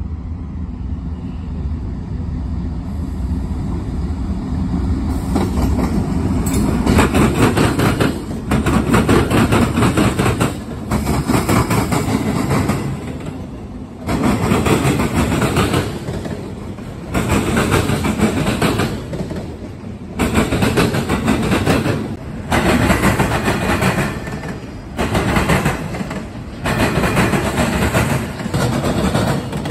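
Autorack freight train passing close by. Its diesel locomotives approach with a low drone that builds over the first few seconds. Then the rack cars roll past with wheel clatter, and the loudness dips every two to three seconds at the gaps between cars.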